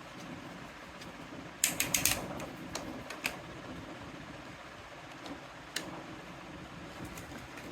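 Small plastic toy kitchen pieces being handled: a quick run of sharp clicks and taps about a second and a half in, then a few single clicks, over a low steady hum.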